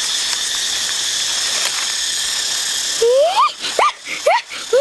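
Steady high-pitched insect drone, like cicadas, which cuts off about three seconds in. After it comes a string of short rising cries, about two a second, each sweeping quickly upward in pitch.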